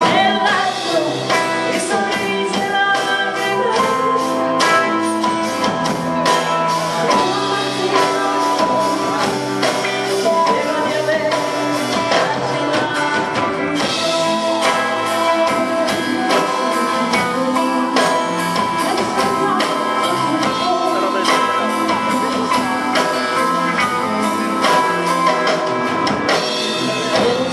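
Live rock band playing: electric and acoustic guitars, bass guitar and drum kit, with a woman singing.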